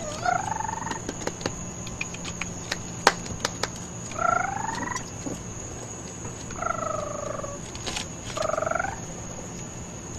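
An animal giving short trilling calls, four times, each call under a second and bending in pitch, over a steady high-pitched insect-like drone.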